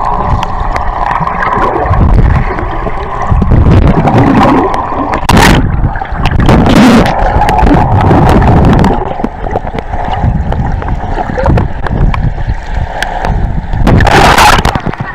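Rushing, sloshing water and rumbling close to the camera during a ride down a water slide, with two sharper splashing hisses, one about five seconds in and one near the end.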